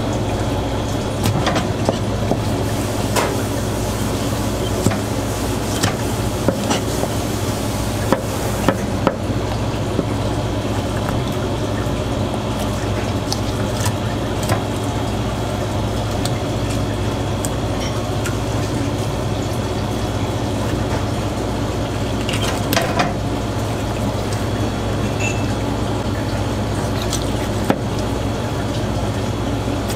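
A steady low machine hum with a hiss over it, and scattered light clicks and taps from a knife working a puffer fish on a plastic cutting board.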